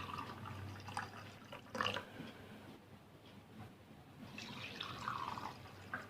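Faint dripping and splashing of turmeric milk, with a few short light knocks, the strongest just under two seconds in, and a run of small splashes near the end.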